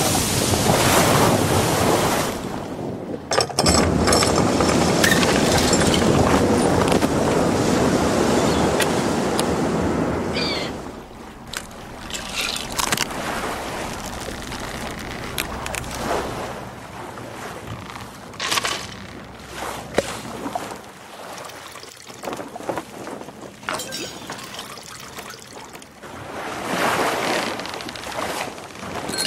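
A loud, steady rushing noise like surf or wind for about the first ten seconds, then quieter, with scattered clicks and short sounds and a brief swell near the end.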